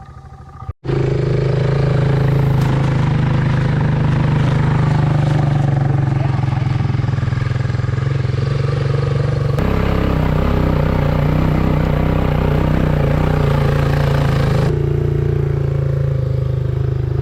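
Quad bike engine running steadily while the bike is ridden, starting abruptly about a second in. Its sound changes suddenly twice, about ten seconds in and again near fifteen seconds.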